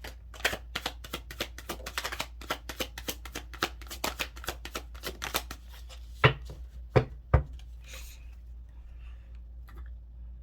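A deck of oracle cards being shuffled by hand: a quick run of card flicks, about five a second, then three sharp knocks a little past the middle, after which the shuffling stops.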